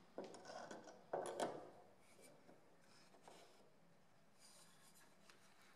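A claw hammer and small pine blocks being handled on a plywood workbench: about a second and a half of rubbing and knocking of steel and wood, loudest near the middle of that stretch, then only faint rustling.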